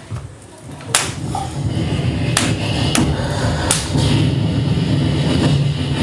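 A steady low rumble with four sharp knocks: one about a second in, then three more within the next three seconds.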